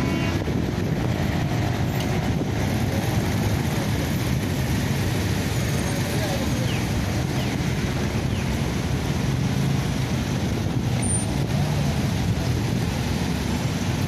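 Steady road traffic noise from the engines of cars waiting and moving on a city street, with indistinct voices in the background.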